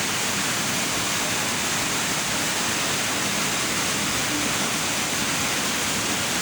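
Waterfall running with a steady rush of water.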